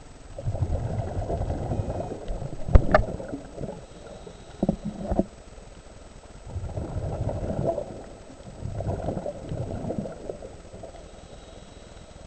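Scuba diver's exhaled bubbles from the regulator, heard underwater as low burbling rushes in three spells. A sharp click about three seconds in and two knocks a couple of seconds later.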